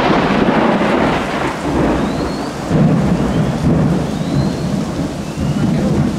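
Thunder rumbling on and on over steady rain, swelling again a little under three seconds in.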